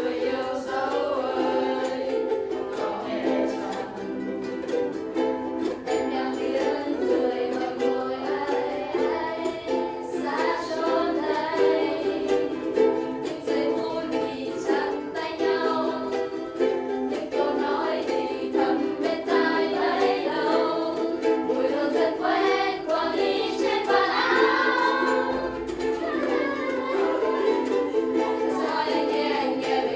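A group of ukuleles strummed together in a steady, upbeat rhythm, with voices singing along.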